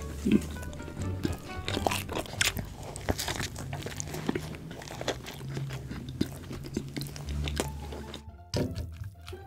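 Close-miked crunchy biting and chewing, many sharp crunches in quick succession, over background music. The crunching thins out about eight seconds in and the music carries on more plainly.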